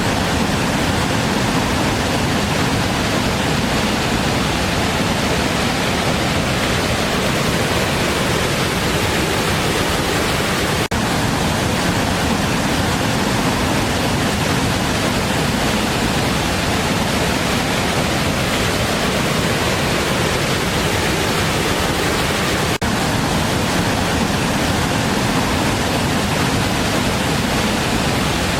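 A big waterfall's water pouring and crashing in a loud, steady, unbroken rush, with two split-second dips partway through.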